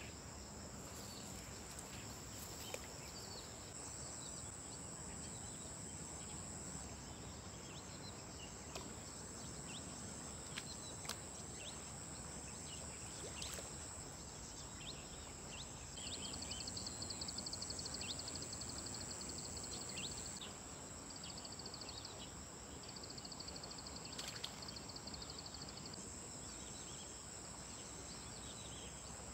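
Steady high-pitched shrilling of an insect chorus, swelling with a fast pulsing layer from about 16 to 20 seconds in, with a few short bird chirps over it.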